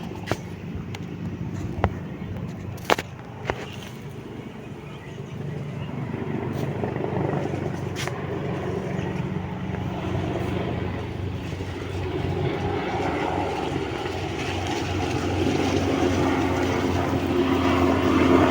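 Aircraft engine noise, rising steadily louder over the second half as the aircraft approaches, with a few sharp clicks in the first seconds.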